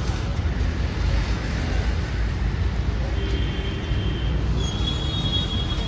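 Batter-coated egg pieces deep-frying in a large kadai of hot oil, a steady bubbling sizzle, over a continuous low rumble of street traffic.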